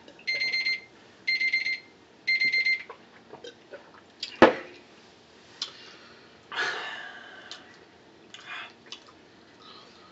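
Phone timer alarm beeping in short bursts of rapid beeps, about one burst a second: the one-minute timer has run out. The beeping stops about three seconds in, and a sharp knock follows about halfway through, with softer handling sounds after.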